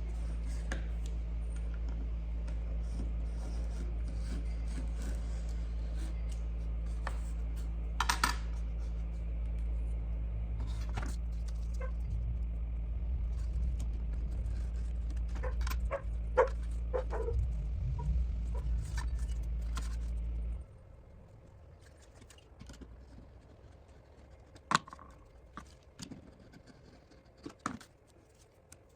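Steady electric motor hum from a workshop machine, which cuts off abruptly about twenty seconds in. Light clicks and scrapes of hand work on wood and bark sound over it, and a few sharp clicks follow after the hum stops.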